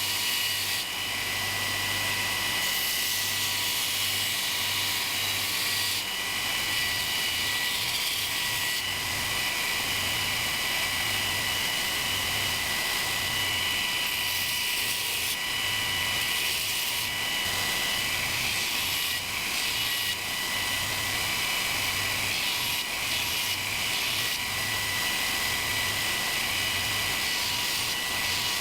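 A power grinder running steadily, a high whine over a dense hiss, the sound changing abruptly every few seconds.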